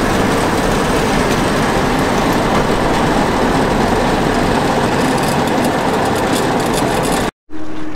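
International 856 tractor running at high throttle and driving a New Holland 36 flail chopper as it cuts and blows green grass: a loud, steady mechanical noise. Near the end it cuts off abruptly, and a quieter tractor engine follows.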